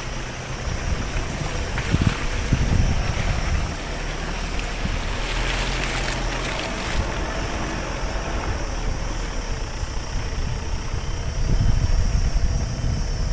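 A vehicle in motion: a steady rumble with wind noise and occasional low thumps.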